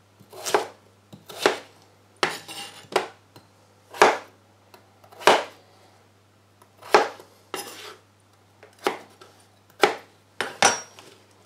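Chef's knife chopping raw potato on a plastic cutting board: sharp knocks of the blade striking the board, about a dozen at an uneven pace of roughly one a second, some coming in quick pairs.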